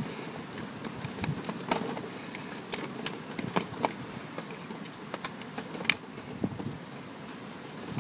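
Water sloshing in a plastic gold pan as it is swirled by hand, with irregular sharp clicks of sand and small gravel knocking against the pan.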